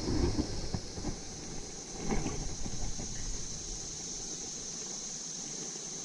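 Low rumbling buffets of wind and handling bumps on the microphone, dying away after about three seconds, over a steady high-pitched hiss.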